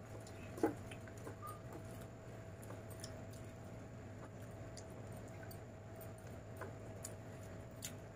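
Faint eating sounds: chewing, and the squish of rice and chicken gravy mixed by hand on a steel plate, with scattered small clicks, a sharper one just under a second in. A steady low hum runs underneath.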